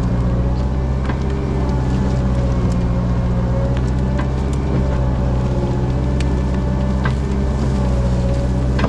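Cat 306 mini excavator's diesel engine running steadily under working load, with a higher whine that wavers up and down over it and scattered sharp knocks and cracks.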